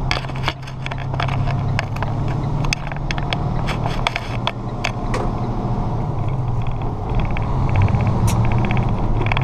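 Semi-truck diesel engine running, heard from inside the cab, with scattered rattles and clicks from the cab. The engine gets louder over the last few seconds as the truck picks up speed.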